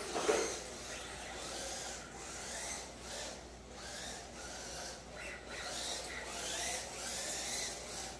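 Two electric RC drift cars running: motor whine rising and falling with the throttle over the hiss of hard drift tyres sliding across foam floor mats. A short louder clatter comes just after the start.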